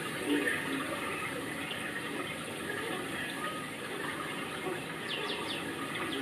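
Steady rush of running water, with a bird's rapid falling chirps about five seconds in.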